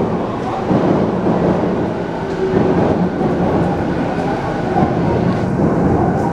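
Electric commuter train running at the station platform: a steady loud rumble with a faint whine.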